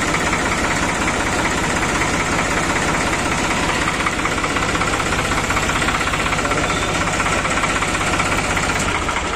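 New Holland 3630 tractor's diesel engine idling steadily, then shutting off right at the end.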